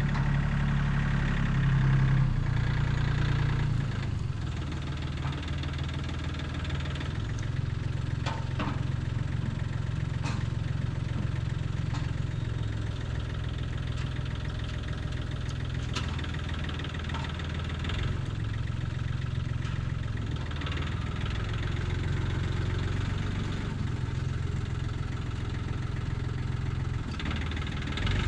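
Skid steer engine running steadily, with a few short knocks or clanks now and then.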